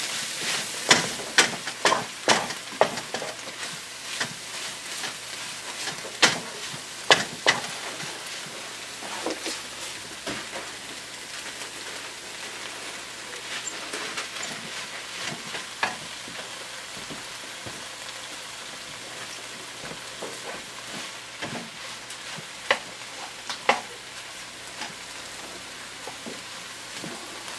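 Kale, mushrooms and onions sautéing in butter in a nonstick skillet: a steady sizzle, with a wooden spatula scraping and knocking against the pan, often in the first several seconds and only now and then after that.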